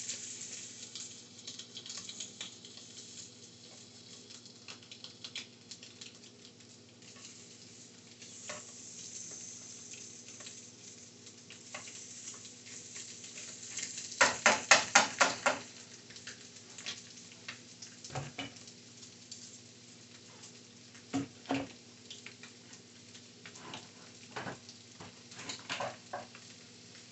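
Tilapia fillets sizzling in a very hot skillet of butter and a little oil as they are laid in with tongs. A quick run of sharp clicks and clatter about halfway through is the loudest part, with a few more knocks near the end.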